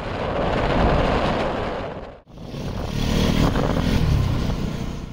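Bajaj Pulsar NS200 single-cylinder motorcycle riding along, engine running under a heavy rush of wind on the microphone. The sound breaks off briefly about two seconds in and resumes with the engine note clearer.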